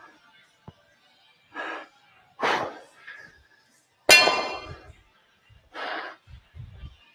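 Hard breaths during dumbbell shoulder presses, then dumbbells clanging down onto the floor about four seconds in, ringing briefly. After that come dull thumps of feet landing in jumping lunges.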